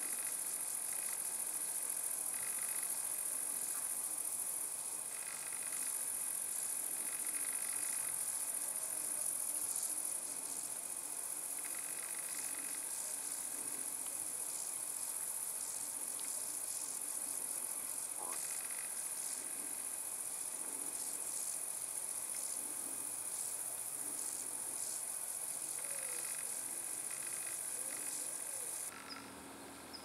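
Steady high-pitched chirring of insects in summer grass, with a few short faint calls, likely birds, lower down. The chirring stops abruptly near the end.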